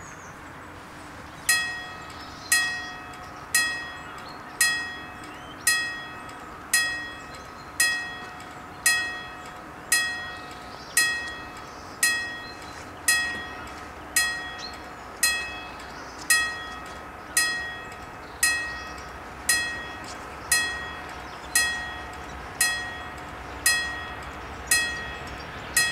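Level-crossing warning bell starting about a second and a half in, then striking about once a second, each strike ringing and dying away before the next: the crossing warning that a train is approaching.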